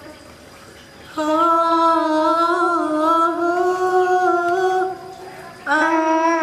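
A voice singing long, steady held notes: one starts about a second in and is held for nearly four seconds, and a second begins near the end.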